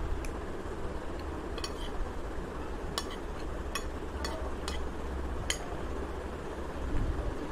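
Metal spoon clinking and scraping against a ceramic plate while scooping fried rice: about half a dozen light, irregular clinks over a steady low hum.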